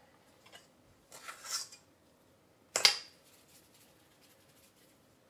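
Light handling sounds at a stainless steel stand mixer bowl as cookie dough is pulled out by hand: a short scrape, then one sharp clink a little before the middle.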